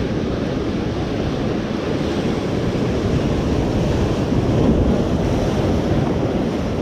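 Ocean surf washing over and breaking against a rocky lava shoreline, with wind buffeting the microphone. It swells louder about four to five seconds in as a wave breaks against the rocks.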